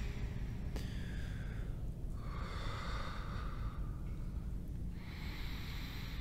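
A man breathing heavily, three long breaths of about a second and a half each, over a steady low rumble.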